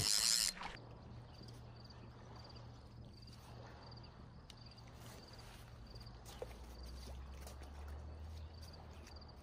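An insect chirping at an even pace, about two short high chirps a second, over faint outdoor ambience with a low steady hum underneath. A brief rustling burst at the very start.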